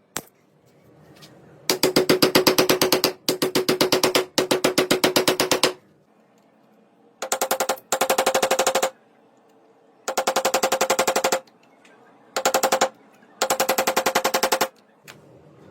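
Power tool worked on wood in eight short bursts, each a fast, even rattle of repeated blows with a steady hum under it. The hum is lower-pitched in the first three bursts and higher in the rest.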